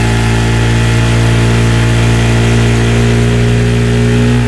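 Mercury outboard motor running at a steady speed with the boat under way, water rushing and splashing along the hull.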